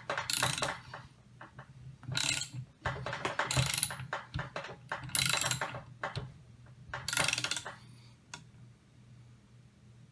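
Ratchet wrench clicking in short strokes, about five bursts of rapid clicks, as it turns the screw of a threaded barrel press, pressing an AK barrel into the front trunnion.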